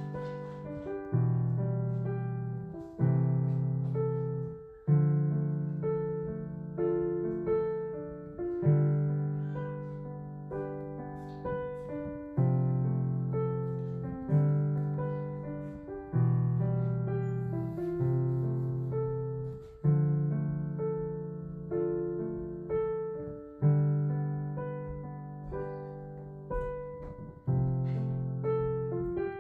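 Background piano music: a gentle melody of struck notes over low chords, each note fading away, the chords changing about every two seconds.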